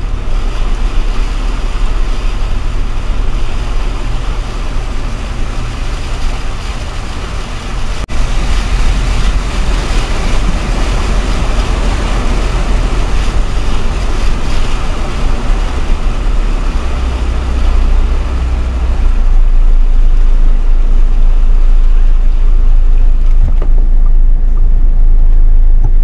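Mahindra Thar SUV driving through floodwater: the engine runs under a steady rush of water and road noise, growing louder for the last several seconds.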